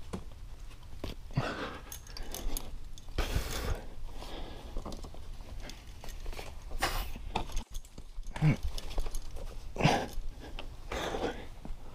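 A rock climber breathing hard on the wall: heavy exhales every second or two, a few with a low voiced grunt, heard close up.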